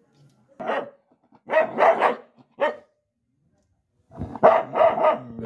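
A dog barking in short bursts, then a longer run of barks near the end, as it reacts to its own reflection in a mirror.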